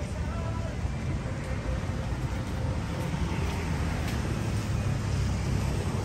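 Street traffic: a steady low rumble with no single event standing out.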